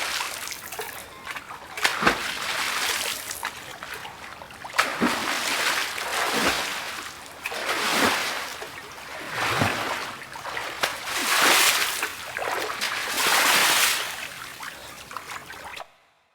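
Water falling and splashing in uneven surges that swell and fade every second or two, with a few sharp splashes. It cuts off suddenly near the end.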